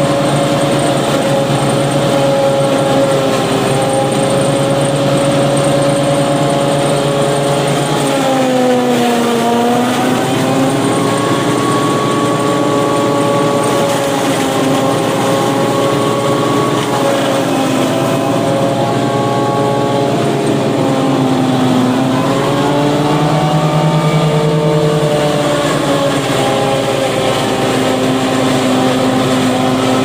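Tractor engine driving a tractor-mounted Fimaks MC10X single-row forage harvester as it chops standing maize for silage. The engine note is loud and steady, sags twice and climbs back.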